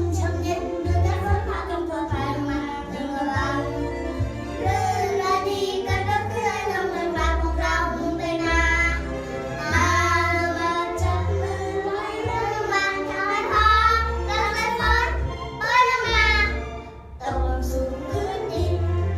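A young girl's voice singing a slow melodic song with wavering held notes, over backing music with a regular bass line, played through a PA sound system.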